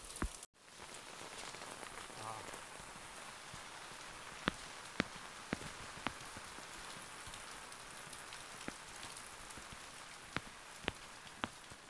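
Steady rain falling, an even hiss, with scattered sharp ticks, some coming in quick runs of three. The sound cuts out completely for a split second just after the start.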